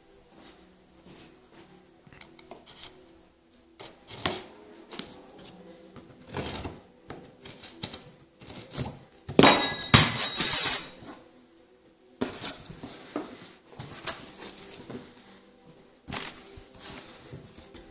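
A cardboard shipping box being opened by hand: scattered scrapes and knocks of cardboard flaps and packaging, with a loud rasping tear lasting about two seconds about halfway through as the sealing tape is cut and ripped open.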